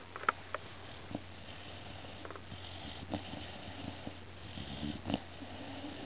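Three-month-old mastiff puppy snoring faintly in her sleep, with two stronger snoring breaths about three and five seconds in and a few light clicks near the start.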